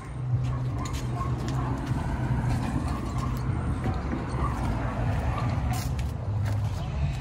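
Steady low rumble of outdoor background noise, with faint wavering sounds higher up.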